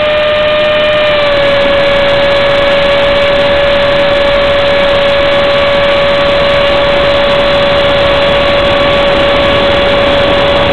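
Electric motor of a foam RC F-18 jet, running on a 4-cell pack at about 900 W, whining steadily in flight over rushing wind, as heard from the onboard camera. The pitch drops slightly about a second in as the throttle eases, then holds steady.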